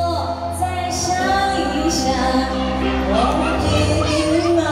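A woman singing a Mandarin pop ballad into a microphone over an amplified karaoke-style backing track with sustained bass notes.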